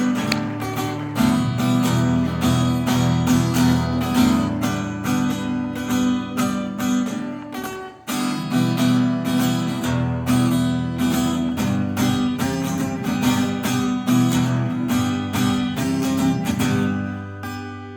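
Acoustic guitar strumming chords as the song's instrumental close, with a brief break about halfway through, then fading out near the end.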